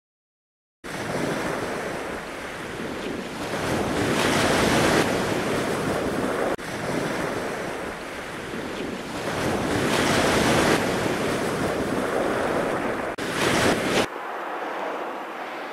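Sea waves and wind buffeting the microphone, a loud, steady rushing that swells and eases. It starts about a second in after silence and drops to a quieter hiss near the end.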